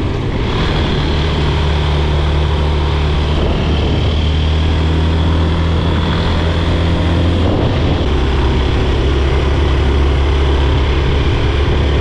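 Suzuki V-Strom adventure motorcycle riding along the road, its engine a steady drone under a rush of noise. The engine note changes pitch about seven and a half seconds in.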